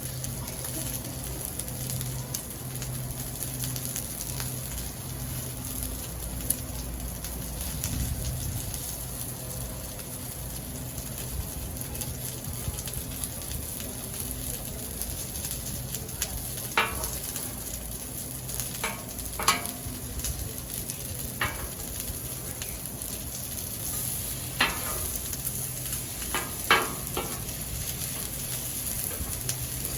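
Sizzling on a hot Blackstone flat-top griddle, a steady hiss over a low hum. In the second half come several sharp scrapes and clinks.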